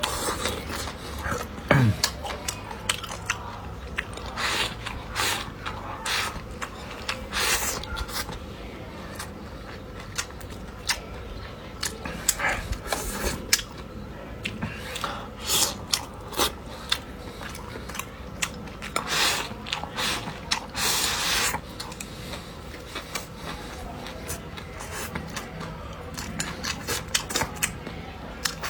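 A person eating: chewing, with utensils clicking and scraping against dishes in many short, irregular sounds, and a few longer noisy stretches of a second or two.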